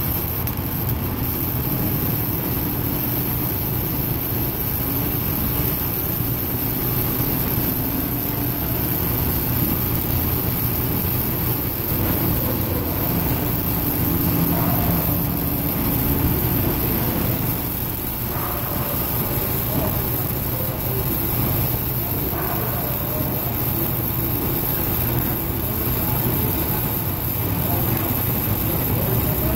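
Flux-cored wire-feed (MIG) arc welding on galvanized steel: the arc crackling and sizzling steadily as a long bead is run.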